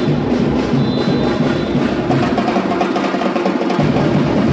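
Live batucada percussion ensemble playing loudly: a dense, driving drum rhythm with sharp clicking hits. The deep bass drums drop out for about a second and a half past the middle, then come back in.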